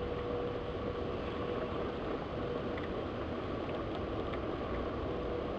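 Steady rain, heard as an even hiss with a few faint ticks of drops, over a faint steady hum.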